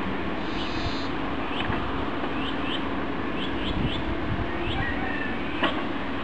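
Excavator diesel engine running steadily while it works a hydraulic earth auger, with many short rising bird chirps over it and a single sharp click about five and a half seconds in.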